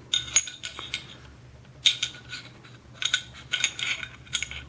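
Ruger P95 pistol's barrel being worked into its slide: irregular metallic clicks and scrapes with a short ring, coming in several clusters.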